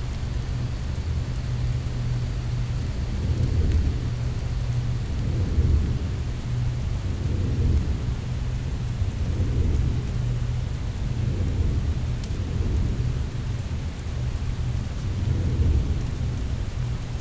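Performance soundtrack of a low, rumbling drone that swells about every two seconds, with a steady hiss above it.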